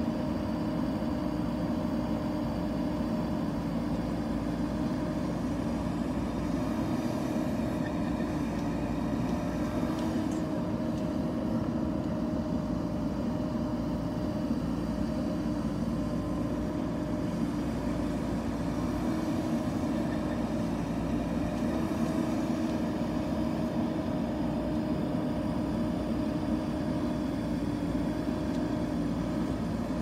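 JCB backhoe loader's diesel engine running at a steady speed while the backhoe arm digs, with an even, unchanging drone.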